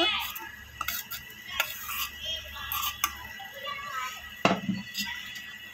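Steel plate and spatula clinking and scraping against a cooking pan as ground fried besan is tipped into boiling milk, with a louder knock about four and a half seconds in.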